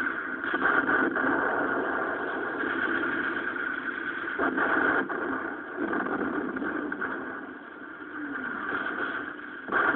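Battle noise from an old war-film soundtrack: a steady, dense din with a few sharp cracks through it.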